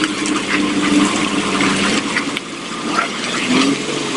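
Heavy three-axle dump truck's diesel engine running as the truck moves slowly forward, with a steady engine note and scattered clicks. Near the end the engine note briefly rises and falls.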